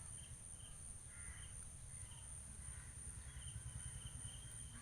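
Outdoor insect chorus of crickets trilling steadily in high tones, with short chirps that run together into a continuous trill after about three seconds, and a faint bird call about a second in.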